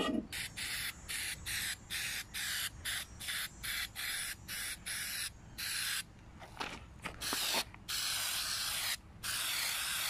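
Aerosol paint-stripper can spraying onto BMX handlebars, at first in quick short bursts two or three a second, then in longer held sprays in the second half. This is a second coat of stripper to lift the paint that did not come off with the first.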